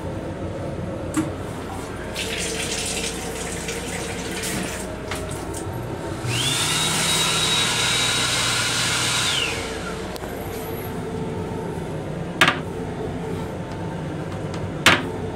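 The M7 restroom's sensor-operated sink fixture, a combined faucet and hand dryer, runs for about three seconds: a hiss with a low hum under it, starting and stopping cleanly. Two sharp knocks follow near the end.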